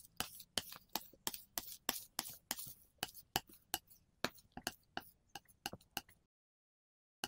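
A quick, irregular run of sharp clicks, about four a second, like keystrokes: a sound effect for the title letters appearing one by one. The clicks stop about six seconds in, and one last click comes near the end.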